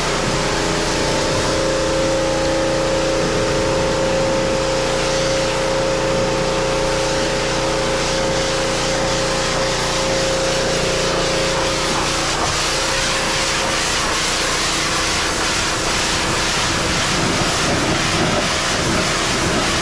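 Pressure washer spraying water onto a boat hull: a steady hiss of spray over the machine's constant hum, with one of its higher tones dropping out about two-thirds of the way through.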